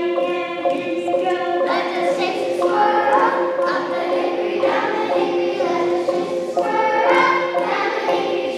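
A group of children singing together over music with two long held low notes.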